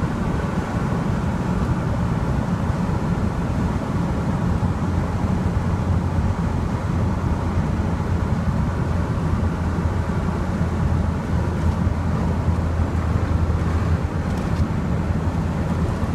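Reliant Kitten's 848 cc four-cylinder engine running steadily at cruising speed, heard inside the cabin as a constant low drone with road noise.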